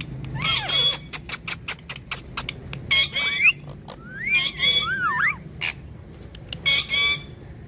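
Parrot calls: about four short bursts of squawking and chattering with sliding pitches, and a quick run of sharp clicks about a second in.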